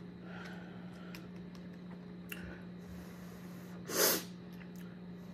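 A person gives one short, sharp snort about four seconds in, the loudest sound here, while peeling boiled crawfish. A few faint clicks of shell handling come before it, over a steady low hum.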